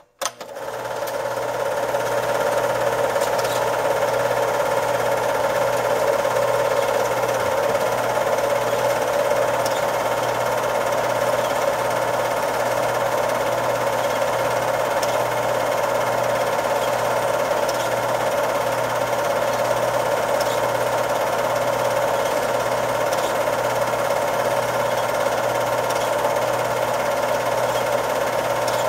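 Home-movie cine projector running: a steady motor whirr with the fast, even clatter of the film-advance mechanism. It starts with a click and comes up to speed within about the first second.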